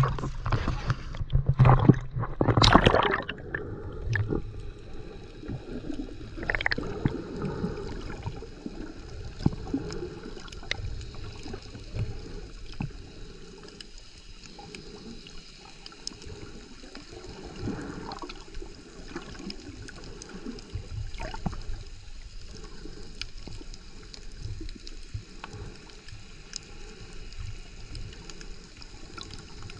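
Water splashing loudly for the first few seconds at the surface, then the muffled sound of being underwater: low water movement and gurgling with scattered faint clicks.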